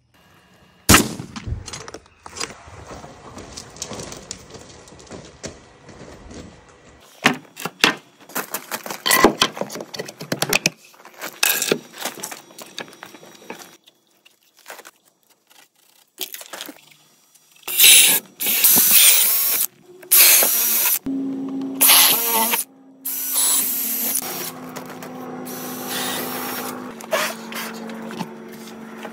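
Carpentry work on a wooden sill plate: a run of short knocks and clicks, then several loud bursts of a power drill boring holes through the pressure-treated board, with a steady hum under the last few seconds.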